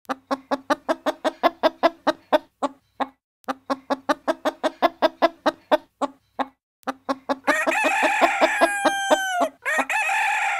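Chicken clucking in a rapid run, about five clucks a second with two short breaks, then a rooster crowing: one full crow that drops in pitch at its end, and a second crow starting near the end.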